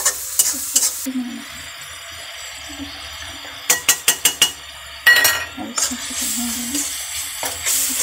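Tomatoes and spices sizzling in a metal kadhai while a metal spatula stirs and scrapes them. About four seconds in there is a quick run of sharp metal clinks as spice paste is tipped in from a steel bowl and scraped out, and the sizzling picks up again as it is stirred in.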